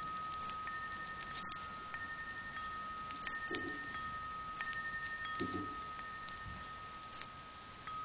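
Wind chime ringing: one clear tone struck at the start rings on, slowly fading, while a fainter higher tone sounds a few times, and the chime is struck again near the end. Faint light ticks come and go under it.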